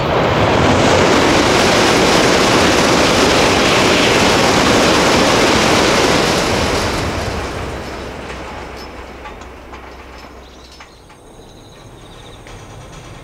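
Tokaido Shinkansen N700-series bullet train crossing a steel girder bridge at high speed: a loud rushing roar that holds for about six seconds, then fades away over the next few.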